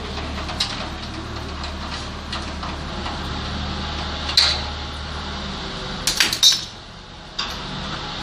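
A few sharp clicks and small metal knocks from hands working on a gas water heater's valve fittings, a cluster of them about six seconds in, over a steady background hum.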